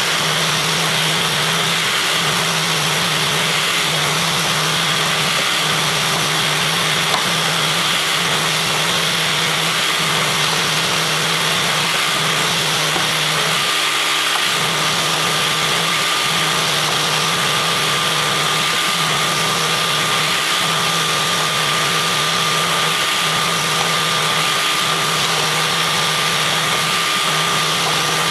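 Electric case trimmer motor and its vacuum running together on a reloading press, a loud, steady whir while brass cases are sized and trimmed. The low hum dips briefly about every two seconds, and a thin high whine joins about halfway through.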